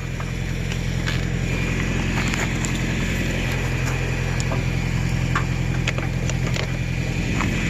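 Old Ford Ranger pickup's engine running steadily with a low, even hum, with scattered small clicks and rattles over it.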